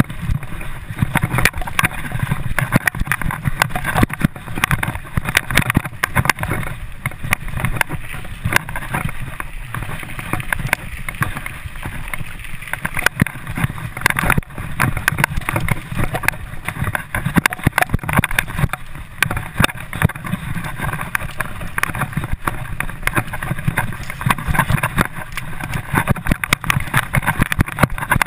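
Mountain bike ridden fast over a bumpy dirt singletrack, heard from a camera on the rider: a continuous rush of wind on the microphone with constant irregular rattling and knocking from the bike over the bumps.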